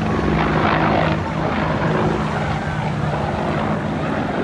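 AH-64 Apache attack helicopter flying past, its rotor blades chopping rapidly over the steady hum of its twin turboshaft engines.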